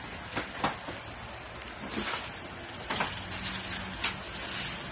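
Camera handling noise: a few light knocks and clicks as the camera is set back in place on its mount, over a steady background hiss.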